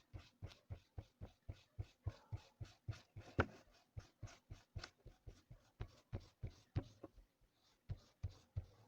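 Chalk scratching across a drawing surface in quick, repeated back-and-forth strokes, about three to four a second, with a brief pause near the end.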